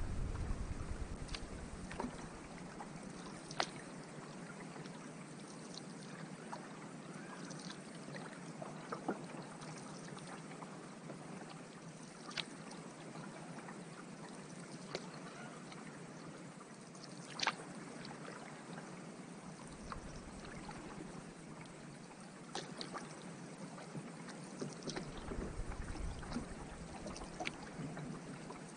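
Water lapping and trickling around a paddled canoe, with occasional sharp light ticks and knocks every few seconds.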